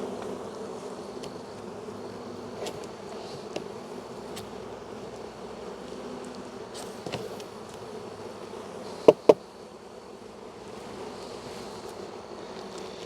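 Honey bee colony buzzing steadily in an open hive during an inspection. Two sharp knocks come close together about nine seconds in, the loudest sounds, with a few faint ticks here and there.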